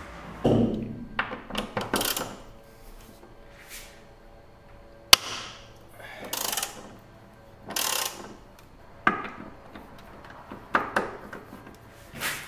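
Ratchet wrench on a long extension clicking through a series of short strokes on the screws of a Porsche 911's front strut top mount, with one sharp metallic click about five seconds in.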